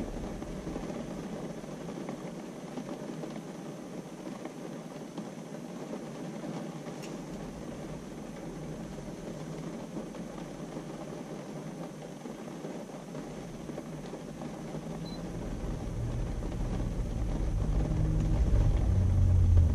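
Car interior noise while driving on a wet road: a steady hiss of tyres on the water-covered pavement. A low rumble builds over the last few seconds.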